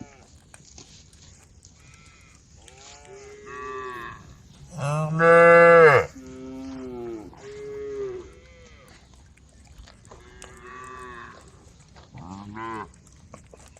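Cows mooing to one another, a string of calls at different pitches that fall away at their ends. The loudest and longest call comes about five seconds in and lasts a little over a second; shorter, fainter moos follow, the last near the end.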